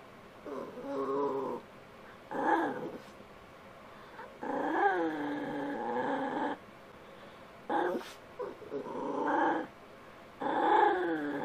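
Poodle vocalizing while begging for a treat: a series of about six drawn-out, wavering calls that bend up and down in pitch, the longest lasting about two seconds.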